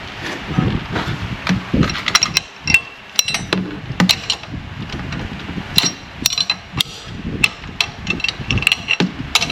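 Irregular metal clinks and knocks of hand tools and engine parts, some with a short ring, as a serpentine belt is worked back onto its pulleys.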